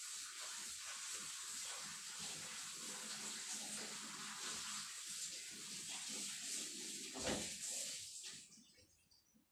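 Tap water running over soaked soybeans in a strainer basket as they are rinsed, shutting off near the end. A dull thump comes shortly before it stops.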